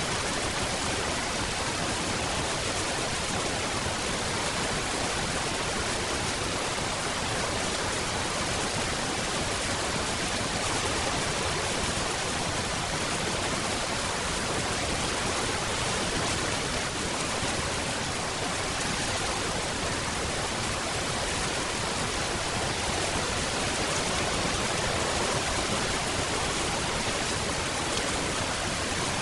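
Steady rain, an even hiss with no distinct drops, changes or thunder.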